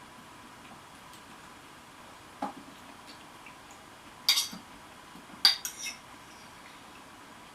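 A few short, sharp clinks and knocks of hard objects: one about two and a half seconds in, then a louder cluster a couple of seconds later and another about a second after that.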